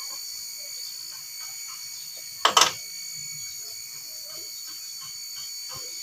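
Faint small clicks of hands handling metal parts at an engine's timing chain and camshaft sprocket, with one loud, sharp double clack about two and a half seconds in.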